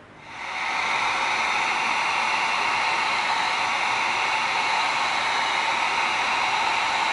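Handheld heat gun switched on and blowing hot air over an EVA foam disc: an even, steady rush of air that comes up to full strength within the first half second.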